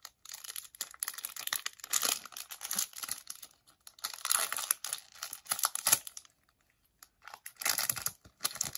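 A Bowman baseball-card pack wrapper being torn open and crinkled by hand, in bursts of rustling and tearing, with a pause about six seconds in before more crinkling.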